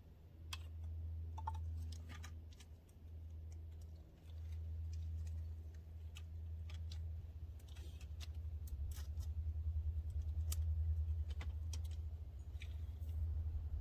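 Scattered small clicks and ticks of screws and plastic door-handle parts being handled, over a steady low hum.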